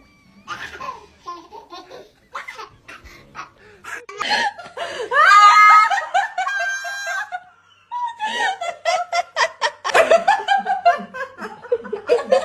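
Laughter, with a long high-pitched voiced stretch about five seconds in, then hearty laughter in rapid, rhythmic bursts after a brief pause.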